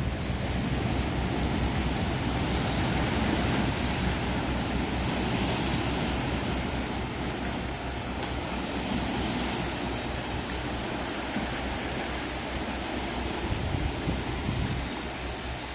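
Wind and choppy sea: a steady, even rush of wind and waves, with wind rumbling on the microphone.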